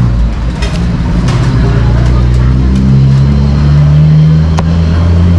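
A motor vehicle engine speeding up close by, its pitch rising over a couple of seconds and then holding. A couple of sharp knocks, typical of a cleaver chopping on a board, sound over it.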